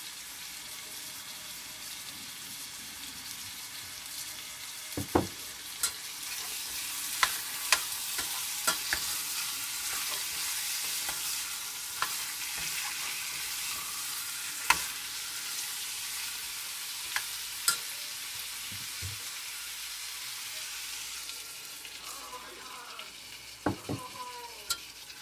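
Marinated chicken liver sizzling in oil in a stainless steel pot as a metal spoon stirs it. The spoon clinks against the pot now and then. The sizzling grows louder about five seconds in and eases off near the end.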